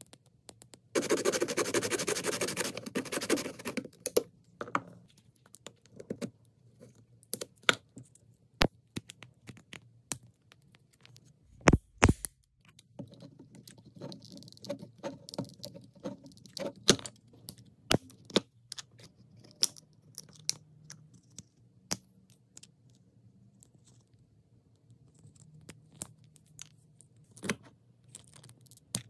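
Fingernails and pliers working a small clear plastic Toy Mini Brands capsule packed with powder: a few seconds of dense scratching and crumbling, then scattered sharp plastic clicks and cracks as the capsule is crushed, with one dull thump near the middle.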